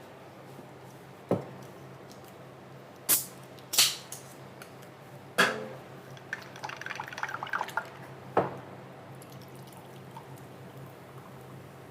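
Kitchen work: several sharp knocks and clinks of things handled and set down on a counter, and a couple of seconds of small crackling, dripping liquid sounds in the middle, over a steady low hum.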